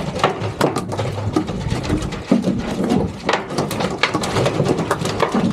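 Rapid, irregular knocks and slaps, like a freshly boated mahi-mahi thrashing against the inside of a boat's fish box.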